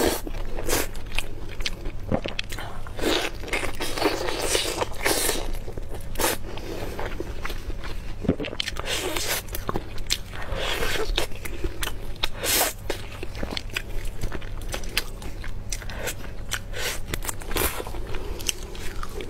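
Close-miked biting and chewing of roast chicken, with wet smacking mouth sounds and many short crunches and crackles.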